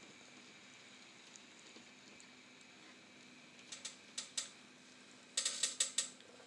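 N scale model train running on track: a faint steady hum, with sharp clicks of wheels on the rails, three clicks a little under four seconds in and a quick run of five or six near the end.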